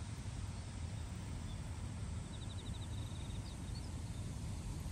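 Outdoor ambience with a steady low wind rumble on the microphone. A faint bird trill of about ten quick notes comes a little over two seconds in, and a few short chirps follow.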